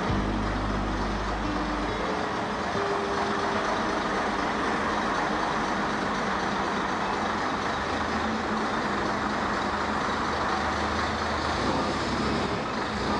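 Engine of a pre-war AEC Regent double-deck London bus running steadily as the bus creeps forward under its own power, under heavy tape hiss.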